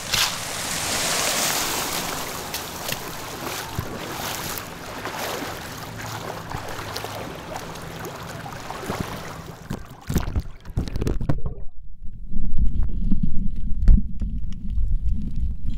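Sea water splashing and sloshing around someone wading in, with wind on the microphone. About ten seconds in the microphone goes under the surface, and the sound turns to a muffled low rumble with dull thuds, heard through a camera sealed in a zip-lock bag.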